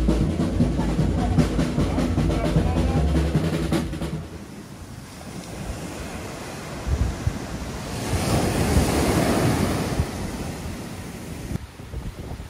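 Loud music with a drum beat for about the first four seconds, which stops abruptly; then surf washing onto a sandy beach, a wave swelling and breaking about eight seconds in, with wind buffeting the microphone.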